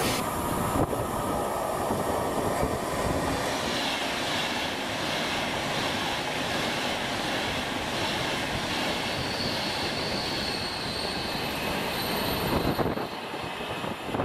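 A Class 390 Pendolino electric train passes through the station at speed: a loud, steady rush of wheel and air noise. A high whine builds in it from a few seconds in. The sound drops away shortly before the end.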